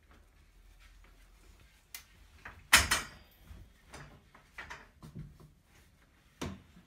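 Folding metal frame of a Sofology sofa bed being pushed down flat: a click, then one loud metal clank just before three seconds in, followed by several lighter knocks and rattles.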